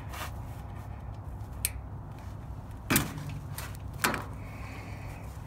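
Sharp plastic clicks and snaps as the SCR heater line #5 connector's clips are squeezed and the connector is pulled off by hand: about four clicks, the loudest two about three and four seconds in, over a steady low hum.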